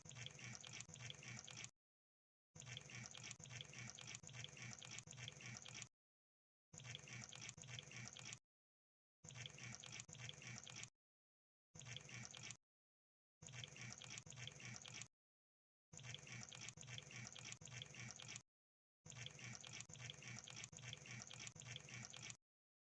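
Crab sound effect: faint, dense, rapid crackling clicks in eight bursts of one to three and a half seconds, with dead silence between.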